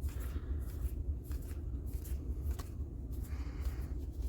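Trading cards being handled and slid past one another as a pack is gone through card by card: soft, irregular papery slides and flicks over a low steady hum.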